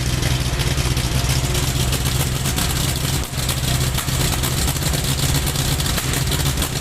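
Isuzu 4HG1 four-cylinder diesel engine running at idle with a misfire, its steady beat briefly dipping about three seconds in.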